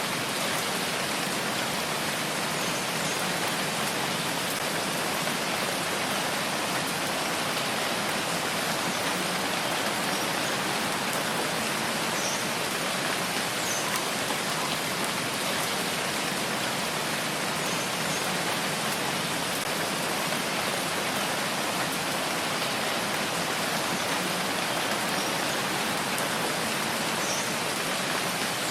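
Steady rainfall, an even hiss of rain with a few faint, sharper drop ticks now and then.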